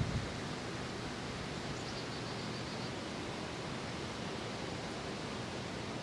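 Steady, even outdoor background noise, with a faint short run of high ticks about two seconds in.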